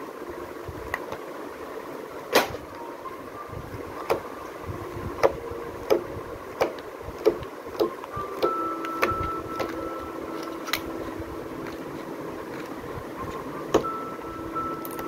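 Stiff cardboard pages of children's board books clapping and clicking as they are turned and the books are handled, about a dozen sharp taps, over a steady background hum.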